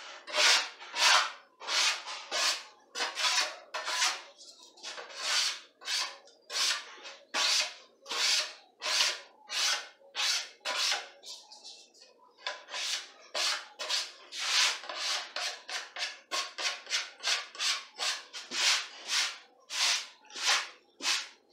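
Hand sanding: sandpaper pushed back and forth over a wooden table top, scratchy strokes about two a second, with a short pause about halfway through.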